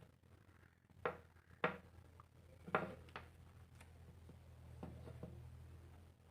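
Light, steady low hum from the speakers of a 4440 single-IC stereo amplifier, which the builder puts down to unshielded input wiring. Over it come five sharp clicks as the wires are handled and connected.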